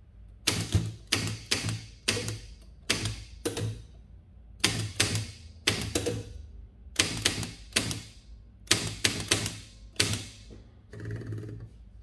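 1939 Bar-Lock Model 19 manual typewriter being typed on, one key at a time: sharp typebar strikes in short, uneven runs separated by brief pauses. A softer, longer mechanical rustle comes near the end.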